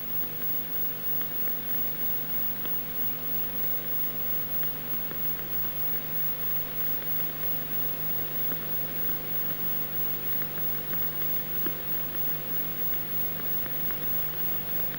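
Steady hiss and a low hum with scattered faint clicks: the background noise of an old film soundtrack, with no other sound on it.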